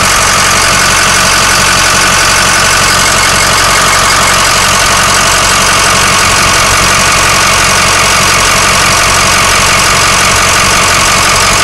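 Ford 6.0L Power Stroke V8 diesel idling steadily and loudly, with a fast, even clicking over the engine note. The owner blames the clicking and knocking on a defective remanufactured longblock, which he says also has excessive blow-by.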